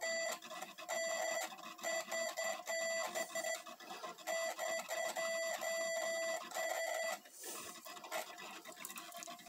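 Morse code sent from punched paper tape by a Hell tape Morse transmitter: a steady mid-pitched beep keyed on and off in dots and dashes, stopping about seven seconds in. After that, a quieter scratchy rustle.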